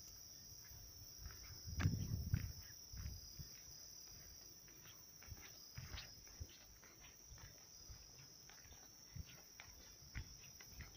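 Footsteps on a road at night with irregular soft knocks, and a louder bump and rustle about two seconds in, over a steady high-pitched chorus of crickets.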